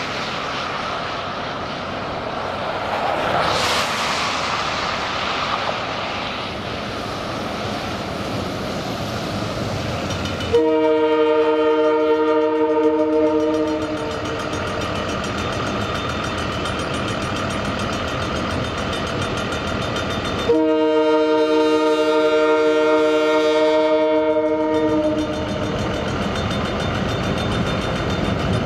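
CN diesel freight locomotive sounding its multi-chime air horn for a level crossing as it approaches: two long blasts of a steady chord, the first about ten seconds in lasting some three seconds, the second about twenty seconds in lasting some four and a half seconds, over the steady rumble of the oncoming train.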